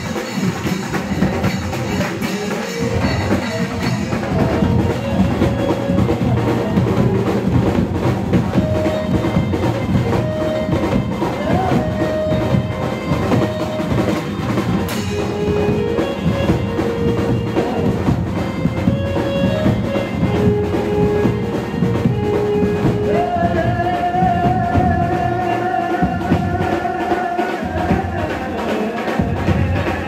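Live garba dance music played by a band: a drum kit and drums keeping a continuous dance beat under a keyboard melody of held notes, with a man singing into a microphone.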